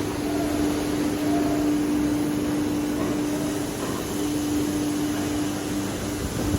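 Hydraulic high-frequency plastic welding machine running with a steady low hum over a noisy hiss.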